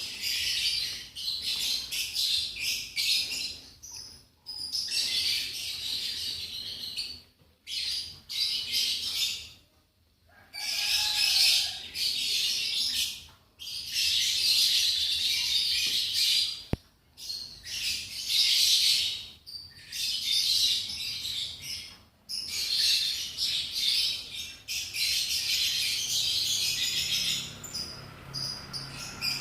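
Lovebirds chattering in shrill, rapid bouts a few seconds long, broken by short pauses.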